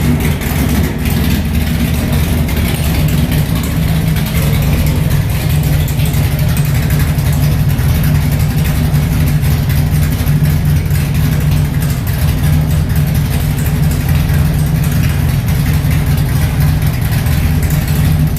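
A 1974 Chevy C10 pickup's 496-cubic-inch big-block Chevy V8 idling steadily and loudly, without revving.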